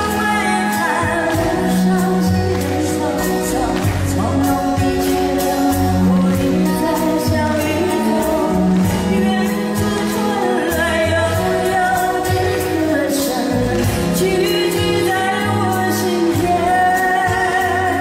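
A woman singing a Mandarin pop ballad live into a handheld microphone over instrumental accompaniment with a steady bass line.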